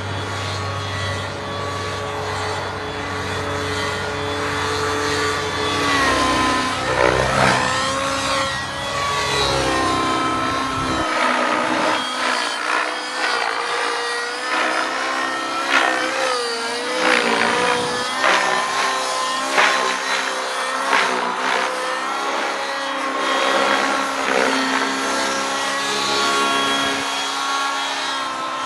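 Align T-Rex 700 radio-controlled helicopter flying aerobatics, its rotor and drive pitch rising and falling again and again as it manoeuvres and passes by.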